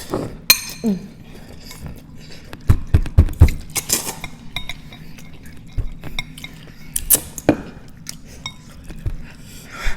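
Utensils clinking and tapping against dishes while spicy noodles are eaten, in scattered sharp clicks, with a cluster of duller knocks about three seconds in.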